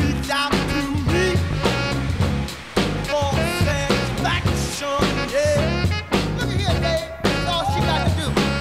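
Rock song with a sung vocal line over bass and drums.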